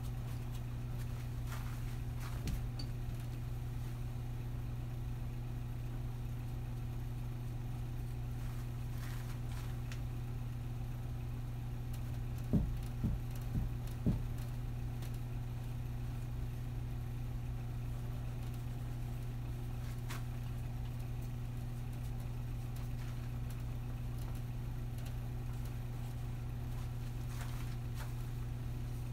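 Steady low electrical hum, with faint scratches of a paintbrush working paint on canvas. A quick run of four light knocks falls about halfway through.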